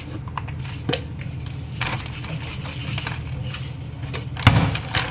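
Kitchen handling sounds: scattered light clicks and knocks of dishes and utensils over a steady low hum, with a louder knock about four and a half seconds in.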